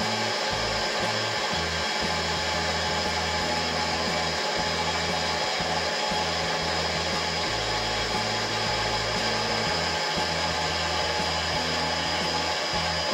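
Optical lens edging machine running steadily, its motor whirring as it cuts a high-index eyeglass lens to shape.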